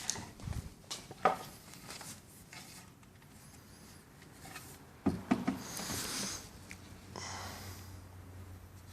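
Clicks and knocks of small plastic shelf brackets being clipped into pre-drilled holes in a cabinet panel, with a cluster of knocks about five seconds in and brief rubbing sounds after it.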